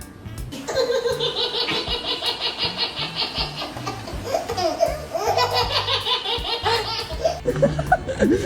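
High-pitched, rapidly pulsing laughter, which turns to wavering, sliding cries about halfway through, over faint background music.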